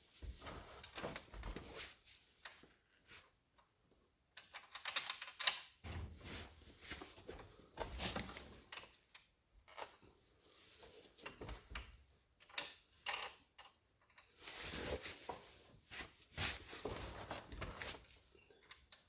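Intermittent metal clinks, clicks and scraping as a bolt and clamp are worked by hand into an ATV track's mounting bracket, trying to get the bolt to catch. One sharp click about twelve seconds in stands out.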